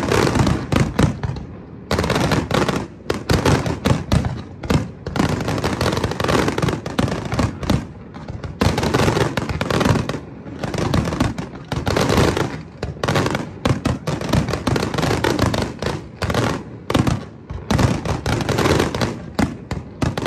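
Fireworks display: many aerial shells bursting in quick, overlapping succession, a dense run of bangs and crackles with short lulls every couple of seconds.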